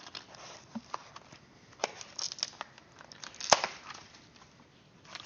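A cardboard shipping box being pulled open and its packing material rustled and crinkled, with scattered small clicks and one sharp knock about three and a half seconds in.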